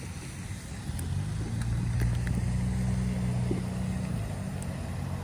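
A low, steady engine hum that swells over the first couple of seconds and then eases a little.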